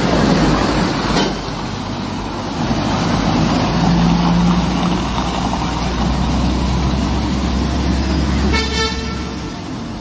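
Heavy-haul truck's diesel engine rumbling low and steady as it pulls a lowboy trailer loaded with a bulldozer away. A vehicle horn toots briefly near the end.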